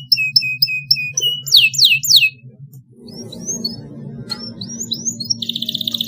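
Domestic canary singing: a run of short repeated chirps, then a few quick falling whistles, a brief pause, and near the end a fast rolling trill. A low steady hum runs underneath.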